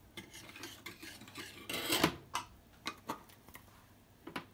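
Metal spoon scraping and clinking against a small stainless steel saucepan, with a longer scrape about two seconds in and a few short clinks after it.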